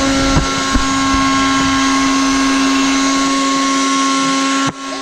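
Small personal blender running steadily as it blends a fruit smoothie, a constant motor hum, with a few low knocks in the first second. The sound cuts out abruptly near the end.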